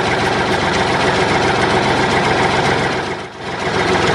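Diesel tractor engine running steadily at idle, briefly dipping about three seconds in.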